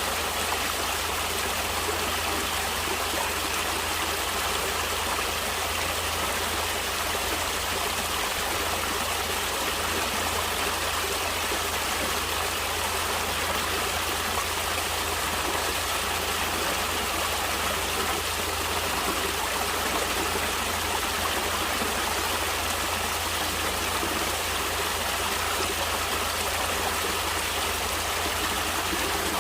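Natural flowing water, a stream running steadily with an even rushing hiss and a low rumble underneath, unchanging throughout.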